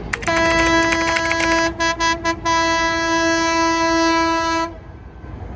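Train horn sounding one long blast, broken by three brief gaps about two seconds in, over a low rumble.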